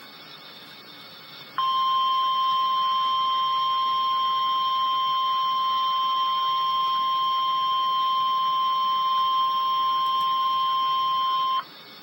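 NOAA Weather Radio warning alarm tone: a single steady tone just above 1 kHz (the 1050 Hz alert), sounding for about ten seconds over faint radio hiss. It starts sharply about a second and a half in and cuts off near the end. It signals that a severe thunderstorm warning message follows.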